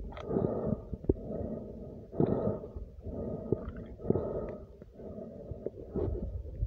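Muffled underwater gurgling and bubbling picked up by a phone's microphone submerged in a lake. It swells in bursts about every two seconds, with scattered clicks.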